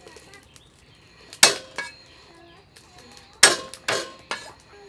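Meat cleaver chopping on a round wooden chopping board: five sharp chops at uneven spacing, the loudest about a second and a half and three and a half seconds in.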